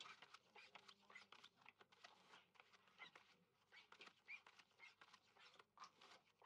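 Faint clicks and soft slides of playing cards being dealt from a shoe onto a blackjack table's felt, many short ticks in an irregular run.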